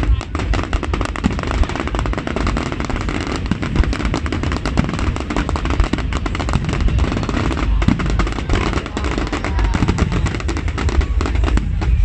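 Fireworks display: many aerial shells bursting and crackling at once, a dense, rapid crackle over a low rumble that goes on without a break.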